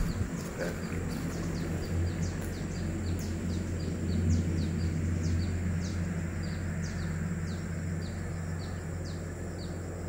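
Birds chirping: a steady run of short, high, downward-sliding notes, about two to three a second, over a steady low hum.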